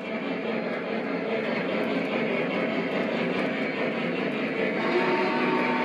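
Model train running on the layout: a steady rumble of wheels on the rails and the locomotive's motor. About five seconds in, guitar music starts over it.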